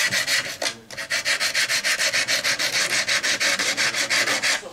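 Coarse 120-grit sandpaper rubbed rapidly back and forth by hand over the edge of a carbon fiber propeller blade, smoothing down a hardened Q-Bond filler repair. A fast, even scratching of short strokes, several a second, with a brief break just under a second in, stopping just before the end.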